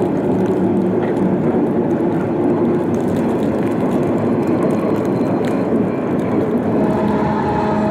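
Diesel locomotives of a westbound double-stack freight train running by, a loud steady engine rumble with a few held pitched tones; more tones join near the end.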